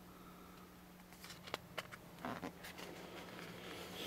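Faint handling noise: a few soft, scattered clicks and light rustles over a low steady hum of room tone.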